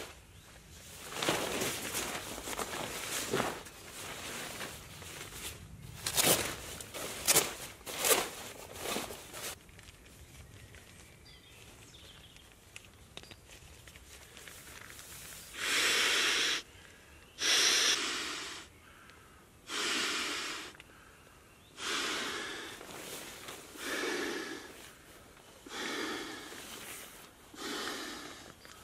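Fabric rustling and handling as sleeping gear is laid out. Then, from about halfway, breath after breath is blown into the valve of an Exped inflatable sleeping mat, one blow of about a second roughly every two seconds.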